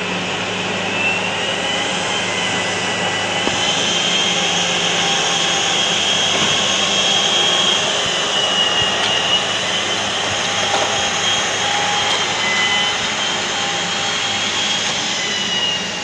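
Lattice-boom crane running steadily under load as it hoists a shipping container: a constant engine-and-winch drone with a low hum and a high whine that wavers slightly in pitch.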